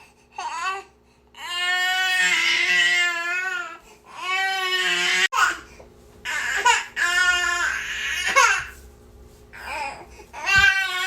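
Infant crying in long wailing cries, each lasting one to two seconds, broken by short gasping breaths and pauses.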